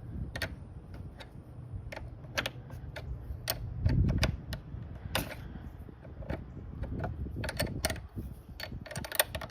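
Irregular metallic clicks and taps as a battery terminal clamp is pushed onto the post and tightened with a hand tool, the clicks coming thicker near the end, with a low thump about four seconds in.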